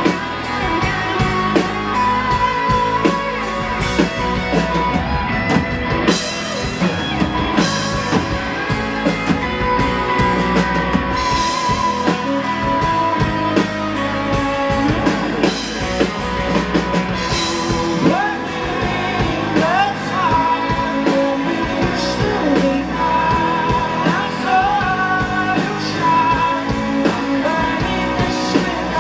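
Rock band playing live: electric guitar and drum kit with a singer's vocals over them.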